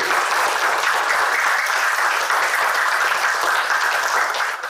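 Audience applauding steadily, stopping suddenly near the end.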